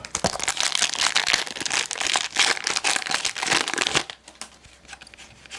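Plastic crinkling and rustling as trading cards and their plastic packaging are handled, dense for about four seconds, then a few light clicks.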